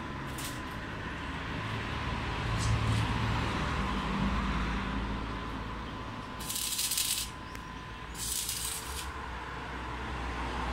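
Loose steel plates of a scrap-metal sculpture rattling and jingling as it is handled: a few light clicks, then two short bursts about six and eight seconds in, over a steady low hum.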